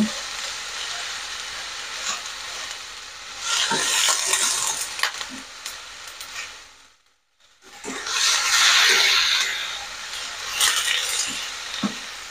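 Chopped cabbage, carrot and spring onion sizzling in hot oil in a granite-coated wok while a wooden spatula stirs and scrapes them, louder in two stretches. The sound drops out for a moment about seven seconds in. The vegetables are being sautéed until wilted and half-cooked.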